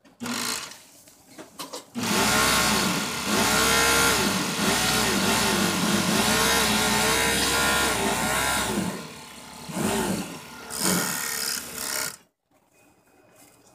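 Hikari HX6814 industrial overlock sewing machine running at high speed as it overlocks a fabric edge, its pitch rising and falling slightly with the speed. It then makes two short bursts and stops about twelve seconds in.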